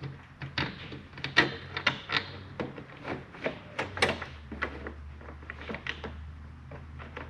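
Irregular clicks and knocks of a slide-out drawer unit and its mounting bolt being handled and lined up in a Jeep cargo area, with a low hum coming in about four seconds in.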